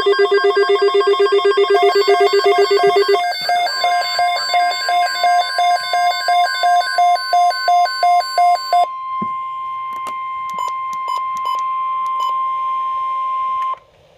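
Electronic alarm beeping in a fast repeating pattern, then the steady NOAA Weather Radio 1050 Hz warning alarm tone held for about ten seconds, which cuts off sharply near the end. The tone signals a National Weather Service alert, here a severe thunderstorm watch, about to be read.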